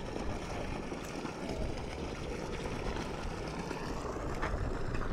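Wind buffeting the microphone outdoors, a steady low rumbling noise with a few faint clicks.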